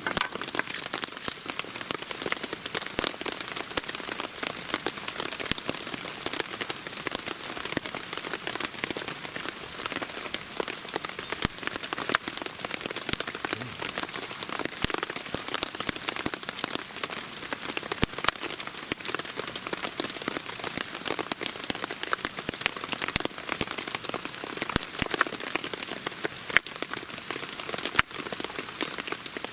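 Steady rain falling, with many small drop hits ticking on a surface.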